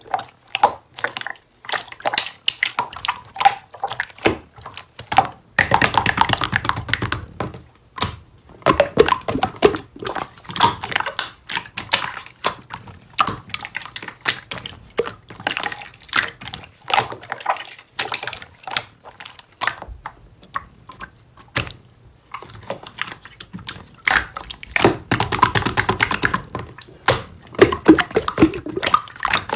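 Slime being squeezed, poked and stretched by hand, making a dense run of wet clicks and small pops, thicker in two stretches of a couple of seconds each.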